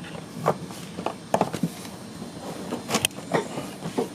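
Scattered light clicks and taps of hand work on a car's shifter linkage while prying at a small retaining clip, with a sharp double click about three seconds in.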